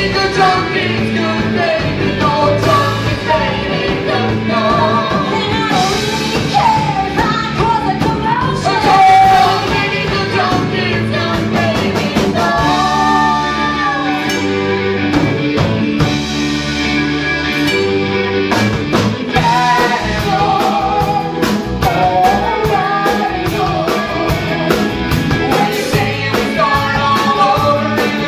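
Live rock band of keyboards, electric guitar, bass and drums playing behind a group of singers, male and female voices together. For a few seconds around the middle the beat drops away under sustained chords, then the drums come back with a steady cymbal beat.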